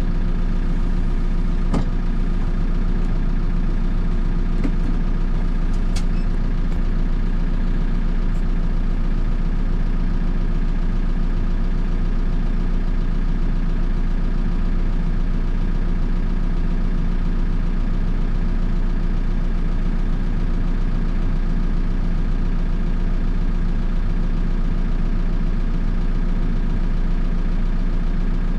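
Backhoe loader's diesel engine idling steadily, heard from the machine itself, with a few faint clicks in the first several seconds.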